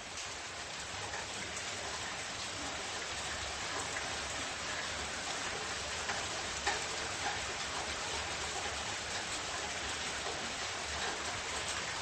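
Steady rain-like hiss with faint scattered ticks.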